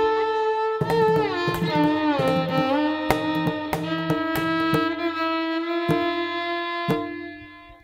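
Background music: a bowed violin melody with sliding notes over a steady low drone and light percussion strikes, fading out near the end.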